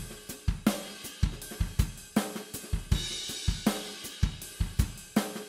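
Background music: a steady drum-kit beat with kick drum, snare and hi-hat.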